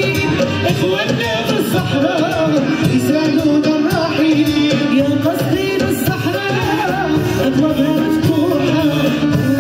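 Live band music with a woman singing a wavering, ornamented melody into a microphone, accompanied by violin and a band, heard loud through the stage sound system.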